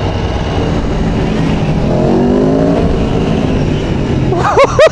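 Motorcycle engine accelerating, heard from the rider's seat over wind and road noise, its pitch climbing about two seconds in. Near the end come a few short, loud rising-and-falling tones.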